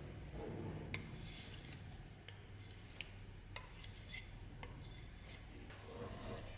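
Hand-held sharpening stone stroked along a steel knife blade: about four short scraping strokes, several with a light click as stone meets blade.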